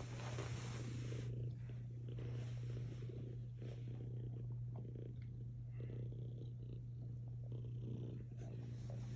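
Domestic cat purring steadily and continuously while it snuggles against a dog, a contented purr.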